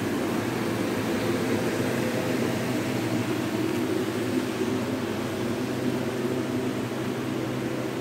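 Pedestal electric fan running with a steady hum.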